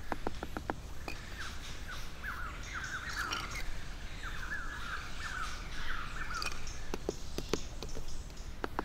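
A bird chirps a run of quick, short repeated notes from about a second in until past the middle. A few short sharp knocks come near the start and again near the end.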